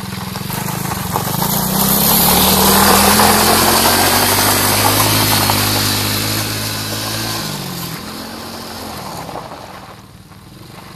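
110cc quad bike engine revving up, running at high revs for a few seconds, then easing off with falling pitch and fading about seven to eight seconds in.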